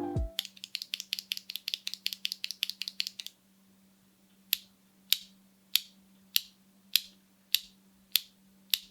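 KTT Coconut Latte factory-lubed linear mechanical keyboard switches clacking: a fast run of presses, about eight a second, for some three seconds, then single presses about every 0.6 s.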